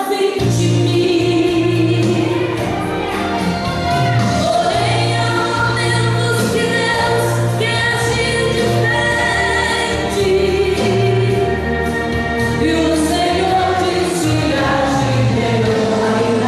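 Gospel song with several voices singing together over a steady bass line.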